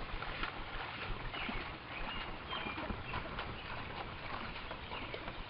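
Paddle blades catching and splashing in the water as two paddlers stroke a tandem racing canoe, with water lapping along the hull and a few short bird chirps in the middle.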